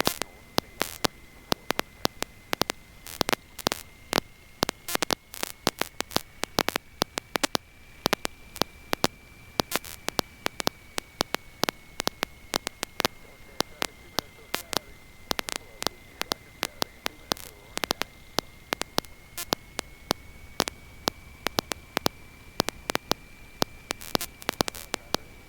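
Aircraft intercom line noise: irregular crackling clicks over a steady high-pitched whine that drifts slightly in pitch, with no voice on the line.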